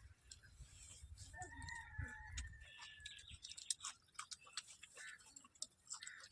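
A faint rooster crow: one drawn-out call of about two seconds, starting a little over a second in. Small scattered clicks of eating and dishes run around it.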